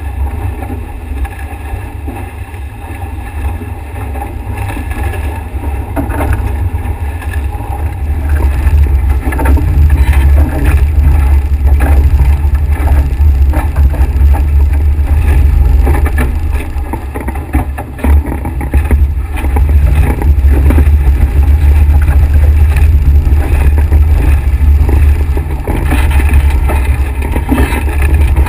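Wind buffeting the microphone of a camera mounted on a Nacra 5.8 catamaran's hull, over water rushing and splashing along the hull as the boat sails fast. The wind rumble grows louder about eight seconds in and stays strong.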